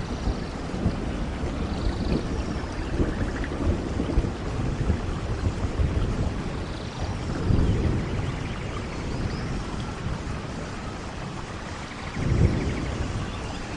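Steady rain falling on forest leaves and ground, with a low rumble swelling twice: about halfway through and near the end. Faint high chirps come now and then.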